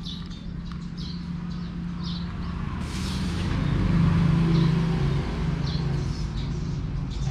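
A motor engine hums low and steady, growing louder about four seconds in, while small birds chirp again and again.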